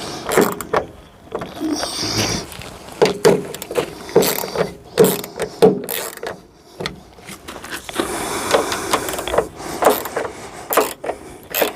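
Irregular clicks, knocks and rattles of hand tools and fittings being worked on a van's rear door.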